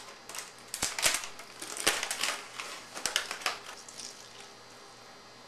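Aluminium foil crinkling and crackling as it is pulled open from around a roasted ham, in several bursts with a few sharp clicks among them. It stops about four seconds in.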